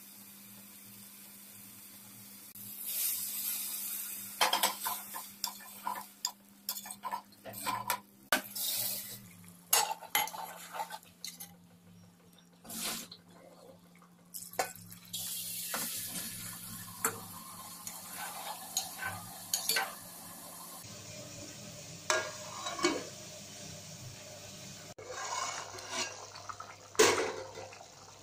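A metal spoon stirring and scraping a thick beef-and-pea masala in a metal cooking pot, with repeated clinks against the pot. About halfway, water is poured into the pot with a steady hiss, and the spoon clinks against the pot a few more times near the end.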